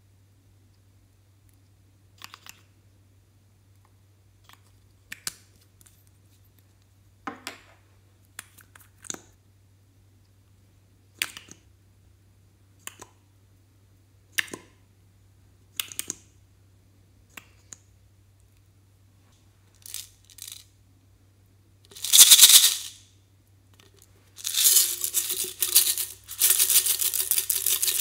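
Scattered small clicks and taps of plastic lip-gloss tubes, caps and applicators being handled. Near the end, a loud rattle of small beads shaken and poured out of an aluminium drink can.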